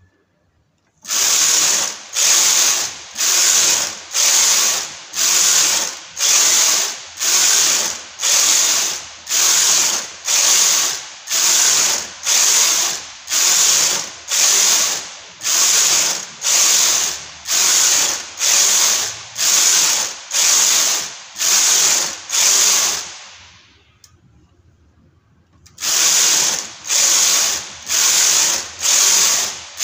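Chunky knitting machine carriage pushed back and forth across the needle bed, clattering on each pass at about one pass a second while it knits plain rows. It stops for about three seconds about three-quarters of the way through, then starts again.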